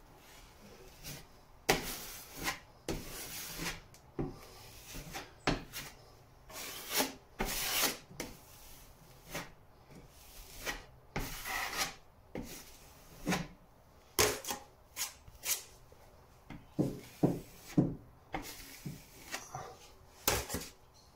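Steel filling knife scraping wet filler across a plasterboard patch as a second coat is spread, in a series of short, irregular strokes.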